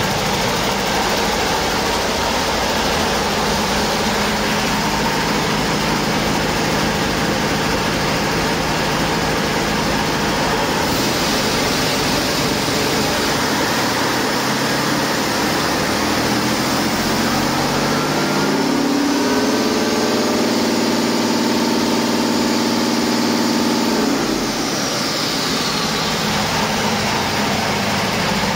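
2016 Detroit Diesel DD15 inline-six diesel engine running on a test run out of the truck. It idles, is revved up gradually about halfway through, is held at higher speed for several seconds, then drops back to idle.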